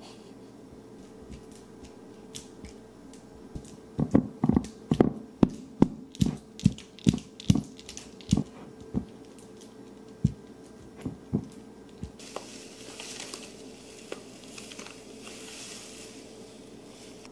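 A silicone spatula mashes softened butter against a glass mixing bowl: a run of knocks about two a second, then a few slower ones. Near the end, granulated sugar pours from a paper bag into a metal measuring cup with a soft, steady hiss.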